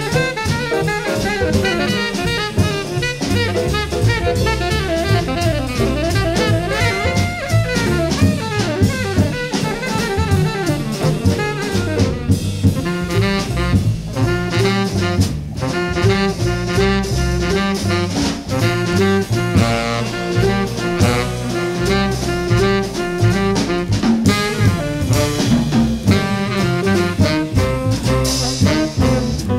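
Jazz quintet recording of a bebop blues: tenor saxophone lines over bass, piano and drum kit.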